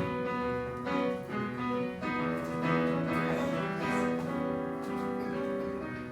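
Piano playing held chords as live accompaniment, changing chord every second or so.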